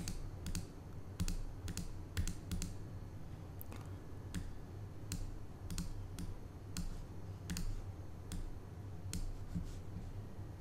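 Irregular clicks of a computer mouse and keyboard, about two a second, over a faint low hum.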